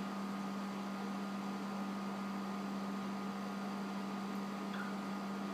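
Steady low hum with a faint hiss of room noise; no guitar is played yet.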